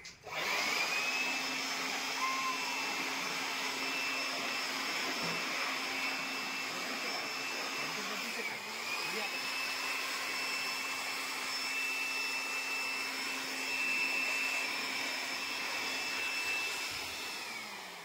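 Handheld electric air blower running with a steady high whine and rush of air as it blows dust out of a split air conditioner's indoor coil. The motor briefly slows and spins back up about halfway through, and again near the end.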